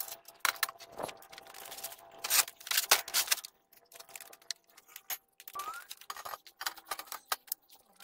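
Irregular light metallic clinks and clatter from handling steel parts and tools on a steel frame, coming in several short clusters with quiet gaps between.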